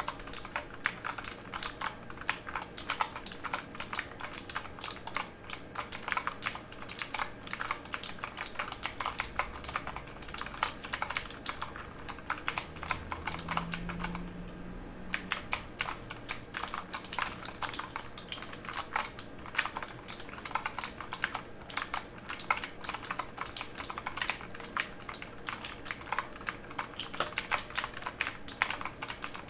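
Fast typing on a mechanical keyboard: a dense, steady run of key clicks, with a brief pause about halfway through.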